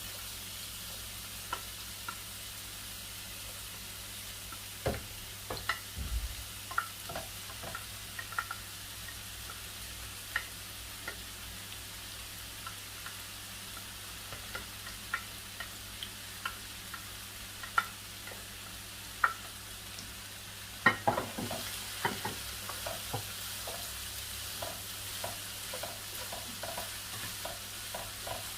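Chopped onion and bell peppers sizzling in hot olive oil, a steady hiss with scattered pops and the clicks of the pan being stirred. There is a cluster of louder knocks about three-quarters of the way through.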